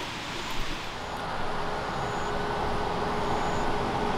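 Large truck passing on a nearby road: steady traffic noise that grows louder about a second and a half in, with a steady engine hum.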